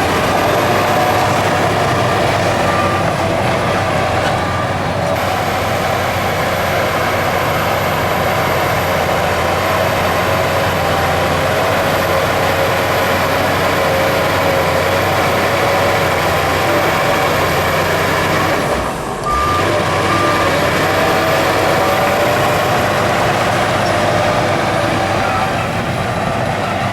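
Heavy diesel earthmoving machinery running loudly and steadily. A reversing alarm beeps a few times near the start and again about two-thirds of the way through.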